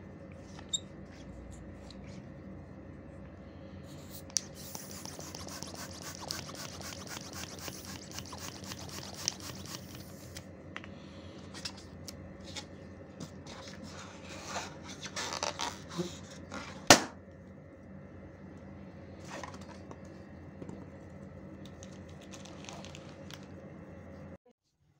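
Latex balloon rubber rubbing and scraping with fine scratchy crackle and squeaks, a few clicks, and one sharp snap about seventeen seconds in, over a steady low hum that cuts off just before the end.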